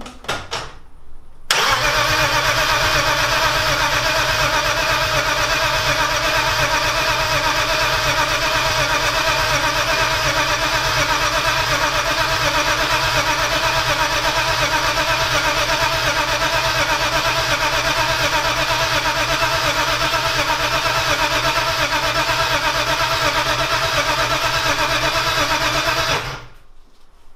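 A few clicks, then a turbocharged BMW straight-six is cranked over steadily on its starter motor for about 25 seconds without catching, and the starter stops suddenly.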